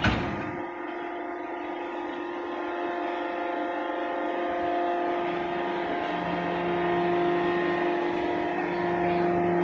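A hydraulic tire bead-wire puller running with a steady machine hum, opening with a sharp clank. A lower tone joins the hum about five seconds in.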